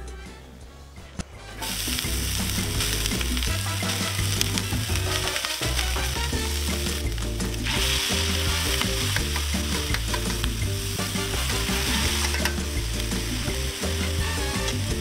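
Chopped beef frying in a hot steel pan, sizzling steadily as it is stirred and turned with metal tongs. The sizzle comes in about a second and a half in.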